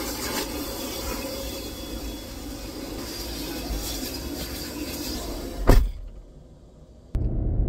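Car-wash vacuum hose running steadily as its nozzle is worked over a fabric car seat, with one sharp knock near the end. The sound then falls away, and a car's steady low road rumble cuts in at the very end.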